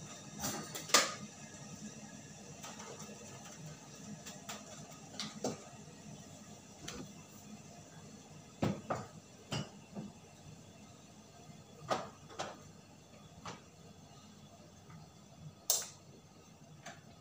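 Scattered knocks, clicks and thuds of someone moving about a small kitchen, spaced a few seconds apart. Near the end comes a sharp click as an electric kettle's plug is pulled from the wall socket.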